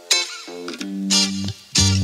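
Background music: plucked guitar notes repeating at an even pace, with a deep bass line coming in about half a second in.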